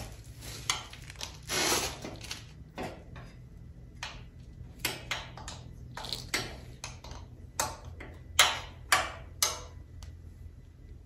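Irregular metallic clinks and clanks of a wrench being fitted to and worked on a differential mounting bolt of a Honda Rubicon ATV, with a run of sharper clanks about half a second apart near the end.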